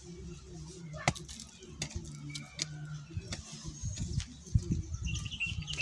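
Hand hoe chopping into and dragging loose soil: irregular sharp strikes about once a second, the loudest about a second in and near the end, over a low steady hum.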